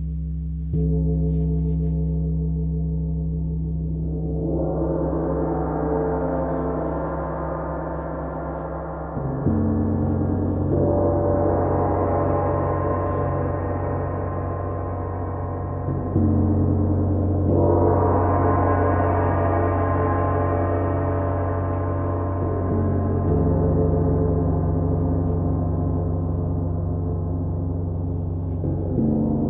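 Large bronze gongs struck with soft mallets, their deep tones ringing on and overlapping. A new low stroke lands every six or seven seconds, and shimmering upper overtones swell up after each one.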